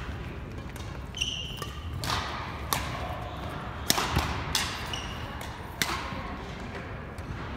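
Badminton rackets striking a shuttlecock in a rally: sharp cracks every second or so, with short sneaker squeaks on the hardwood court floor between shots.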